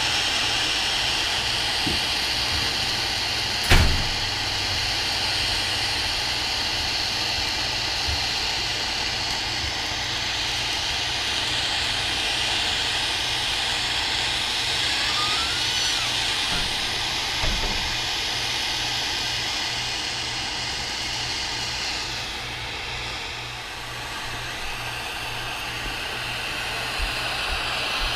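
Soldering torch flame hissing steadily as it heats a copper radiator pipe and the radiator bottom for soldering. A single sharp knock about four seconds in, and the hiss dips briefly near the end.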